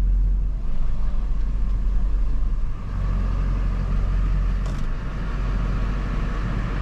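GMC Sierra pickup truck's engine running as the truck is driven slowly, heard from inside the cab as a steady, deep rumble.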